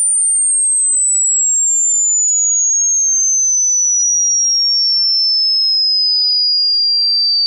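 Loud, very high-pitched pure electronic sine tone, one steady note gliding slowly and evenly downward in pitch.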